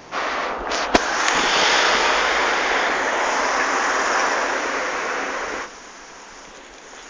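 Loud steady rushing hiss that starts abruptly, has a sharp click about a second in, and cuts off suddenly after about five and a half seconds.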